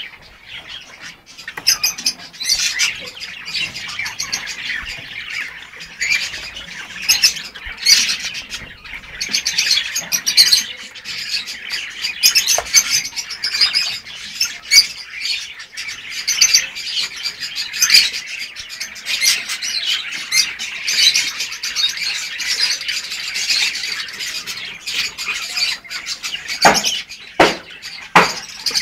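Lovebirds chattering nonstop in a dense stream of shrill chirps and squawks, with a few sharp knocks near the end.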